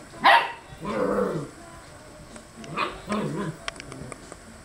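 Small dog barking in two bouts, each a sharp high yip followed by a lower sound that falls in pitch, about two and a half seconds apart. She is barking down at her toys lying on the floor, wanting them put back on the couch.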